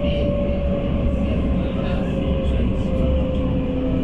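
Tram running on its rails: a steady low rumble with a thin whine that slowly drops in pitch.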